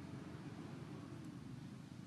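Faint, steady low rumble of background noise, with no distinct event standing out.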